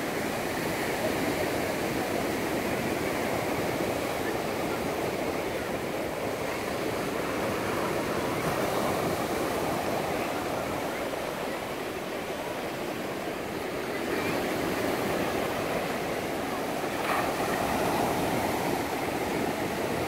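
Small sea waves breaking and washing up a sandy beach: a steady rush of surf that swells and eases, a little louder in the last few seconds.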